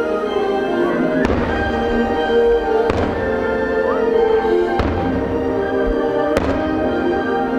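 Fireworks shells bursting, four booms about every second and a half to two seconds, each followed by a low rumble, over the show's music soundtrack.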